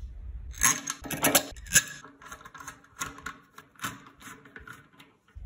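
Ratchet with a socket extension clicking as the bolts of a motorcycle fuel-filler cap are turned, with sharp irregular clicks and metal knocks, loudest in the first two seconds. A low hum cuts off less than a second in.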